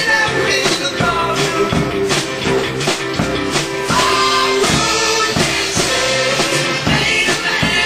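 Pop-rock song with singing, drums and guitar, playing as the soundtrack of an animatronic band show.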